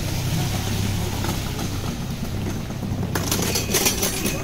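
Street traffic with a steady low engine hum, and a quick rattle of sharp clicks about three seconds in.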